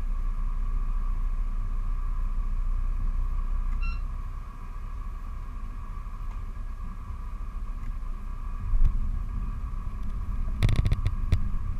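Motor yacht's engines running at slow speed, a steady low rumble with a steady high hum over it, heard from on board. A short beep sounds about four seconds in, and a few sharp knocks come near the end.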